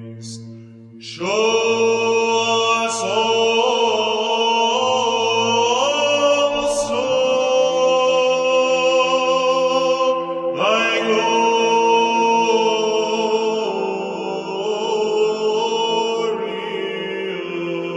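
Background music of Orthodox church chant: voices holding long notes that step slowly in pitch over a steady low drone, swelling in about a second in.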